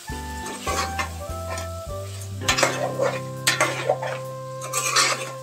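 Metal spoon stirring and scraping chicken pieces with spices around an aluminium pot as they fry and sizzle. The scrapes grow louder from about halfway and again near the end.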